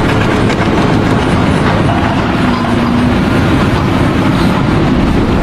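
Loud, steady mechanical rumbling with a fast rattle running through it.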